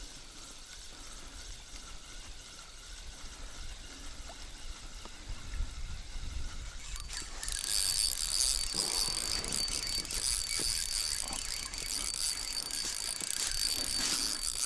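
Spinning reel being cranked, a steady mechanical whir with a thin high whine, starting about halfway through as the lure is wound in.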